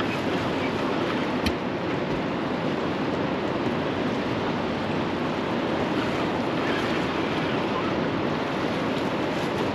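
Steady rush of fast-flowing river current and choppy water against the boat, mixed with wind on the microphone. One short sharp click about one and a half seconds in.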